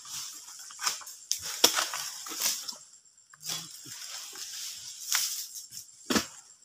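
Irregular chopping and scraping of a harvesting blade against an oil palm's frond bases, with fronds rustling. There are about half a dozen sharp strikes, clustered in the first three seconds and again near the end.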